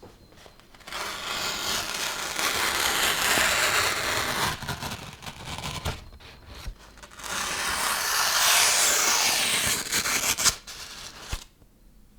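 Freshly sharpened kitchen knife blade rubbing and scraping against a material in two long passes of about three seconds each, with a few sharp clicks between and after them.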